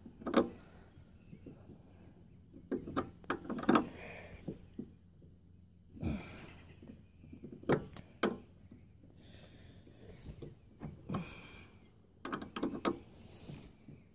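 Scattered metallic clicks and light knocks of an Allen key turning a tailgate ball stud out of a pickup's tailgate, with a quick cluster of clicks near the end.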